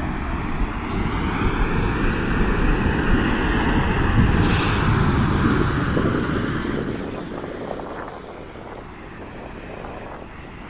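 Wind rumbling and buffeting on the microphone over a steady rushing noise. It swells about halfway through and eases off in the last few seconds.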